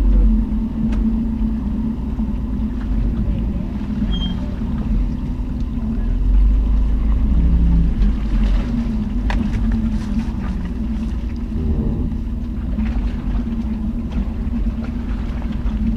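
Jeep Cherokee Trailhawk engine running at low, steady revs as it crawls along a rough off-road trail, with a low rumble and scattered knocks and clicks.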